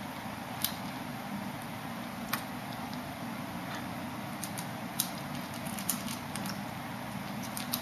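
Kitten eating dry kibble from a plastic bowl: irregular sharp crunches and clicks of the kibble, a few louder than the rest, over a steady background hiss.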